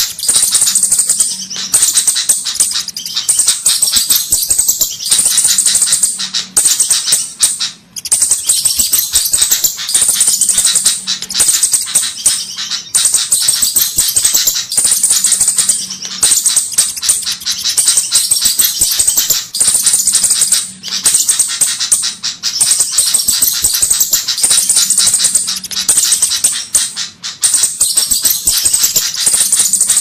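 Bird-lure recording of flowerpecker calls: rapid, sharp, high-pitched ticking and chattering, repeated in short phrases about every two seconds, each topped by a thin, very high trill.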